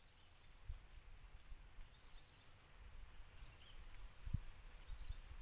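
Insects, such as crickets, giving a steady high-pitched trill, with a few soft low thumps, the loudest about four seconds in.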